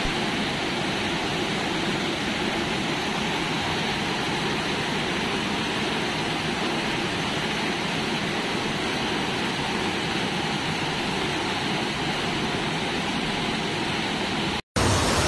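Flash-flood torrent of muddy water rushing through a street: a steady, loud rush of churning water, with a brief dropout near the end.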